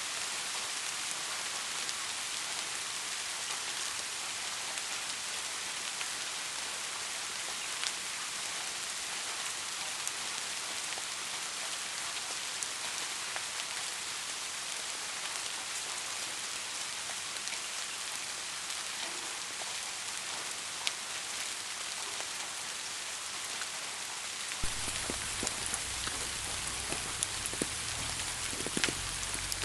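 Steady rain falling, an even hiss with scattered single drops ticking. About 25 seconds in, a low rumble comes in underneath and the individual drops become more frequent.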